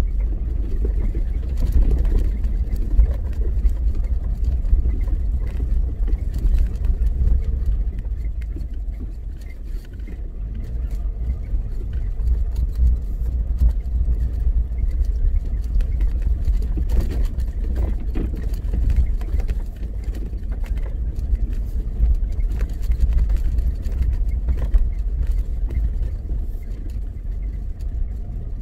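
Vehicle driving along an unpaved gravel mountain road: a steady low rumble of engine and tyres, with scattered faint clicks.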